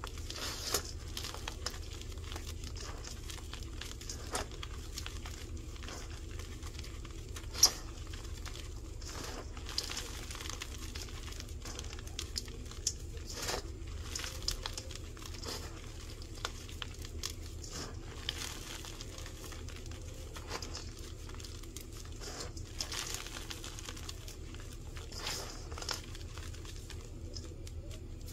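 Hands squeezing and crumbling crushed, dyed baking soda blocks: a dense, steady crunching and crackling with scattered sharper cracks, the loudest about seven and a half seconds in. A low steady hum lies underneath.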